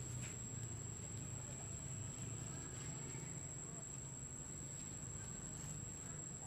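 A steady, high-pitched insect drone, unbroken, over a low background hum.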